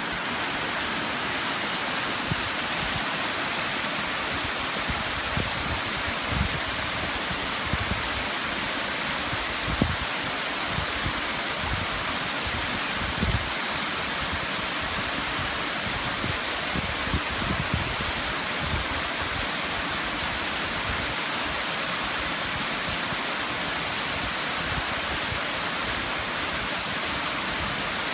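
Mountain stream cascading down a rocky gorge: a steady, even rush of falling water. Several brief low thumps sound over it.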